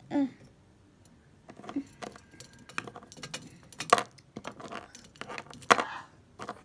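Small plastic toys being handled: clicks, taps and clatter as pet figures and a jointed plastic snake toy are knocked together and moved over a wooden surface, with two sharper clacks about four and six seconds in.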